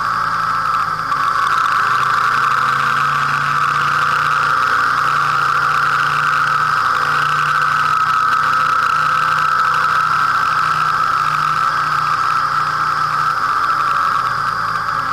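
Motorcycle engine running steadily while riding, under a constant rushing noise, as picked up by a dash camera's microphone mounted on the bike.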